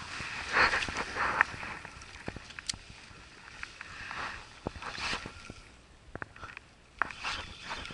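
Small waves splashing against the side of a boat in short bursts, with scattered light clicks and knocks from fishing tackle being handled.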